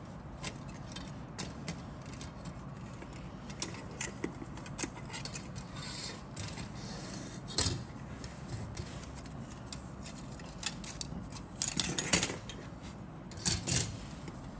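Plastic model-kit sprues being handled on a cutting mat: light clicks, taps and rubbing of plastic parts against each other and the mat, with louder clatters about halfway and twice near the end.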